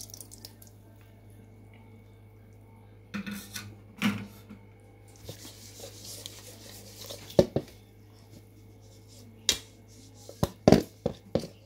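Hands rubbing wet green seasoning into a whole fish in a stainless steel bowl, with scattered knocks and clatter against the metal, the loudest near the end, over a steady low hum.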